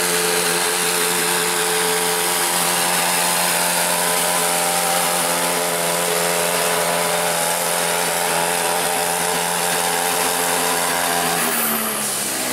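Pulling tractor's diesel engine running flat out under heavy load as it drags the weight-transfer sled, a steady high-revving drone. Near the end the engine note drops away as the pull comes to a stop.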